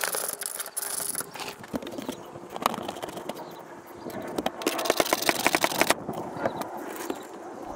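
Hand tools and parts being worked under a car's hood: scattered clicks and scrapes, with a run of rapid, even clicking about five seconds in.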